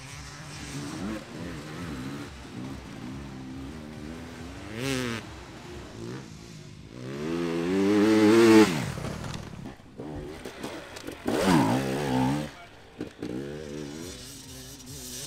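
Enduro dirt bike engines revving up and down as riders work the throttle. The loudest run comes about halfway through, when an engine climbs high in pitch and then drops away; another short burst of revving follows a few seconds later.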